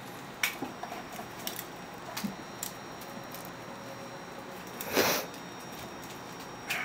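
A cat playing with a wand toy on a carpeted cat tree: scattered light taps and scuffs as it paws and bites at the toy, with one louder, brief scuff about five seconds in.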